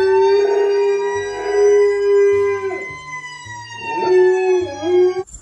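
Dog howling: a long drawn-out howl, a brief dip, then a second howl that cuts off suddenly near the end.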